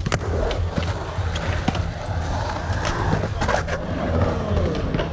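Skateboard rolling and carving through a concrete pool bowl, its wheels rumbling on the concrete, with scattered clicks and knocks from the board.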